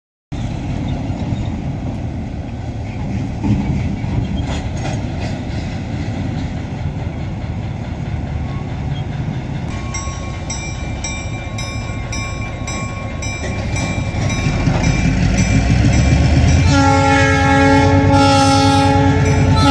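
Diesel switcher locomotive rumbling past at a crossing, its engine growing louder as it throttles up. A bell starts ringing steadily about halfway through. A loud multi-note air horn blows near the end.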